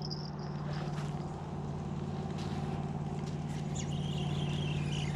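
An engine running steadily with a low, even hum that grows slightly louder.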